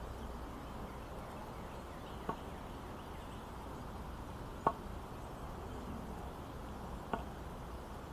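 Walking stick tapping on a brick-paved path, three short sharp taps about two and a half seconds apart.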